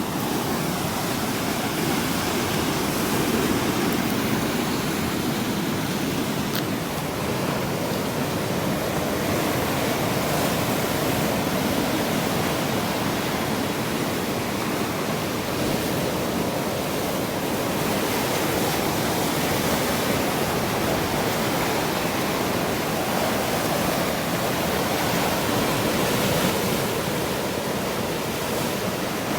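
Sea waves washing onto the shore in a continuous, steady rush of surf that swells slightly now and then.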